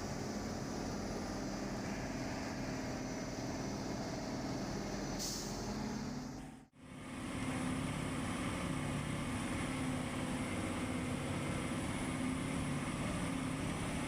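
Steady motor vehicle engine and road noise, a low running hum under a rushing sound, which cuts out for a moment about halfway through and then resumes.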